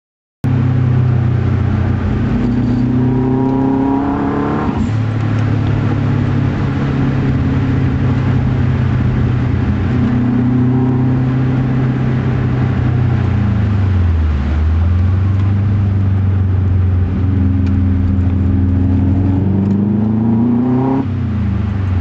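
A car engine working hard through a long slide. It comes in about half a second in, climbs in revs twice and drops back each time, with a dip in between.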